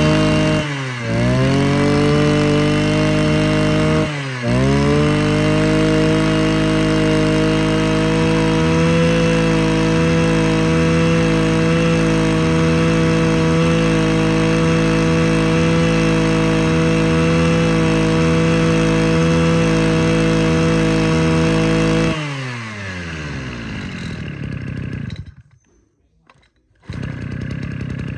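Echo (Kioritz) 31cc two-stroke brush cutter engine running at high revs. Its speed dips and picks up again twice in the first few seconds, then holds steady. Near the end it winds down.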